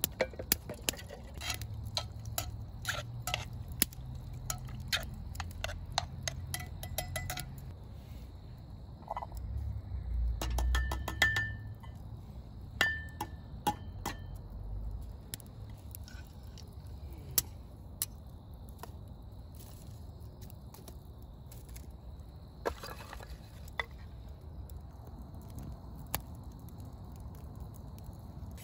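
Wood fire crackling with sharp pops under a cast-iron Dutch oven, and a cluster of metal clinks as the pot and a small tin are handled over the grate about ten to fifteen seconds in. A faint steady high tone runs underneath.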